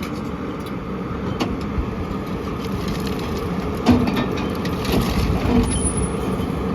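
JCB JS160 tracked excavator's diesel engine running steadily under hydraulic load as the bucket and thumb work a pile of debris, with several sharp knocks of rock and concrete, the loudest about four seconds in.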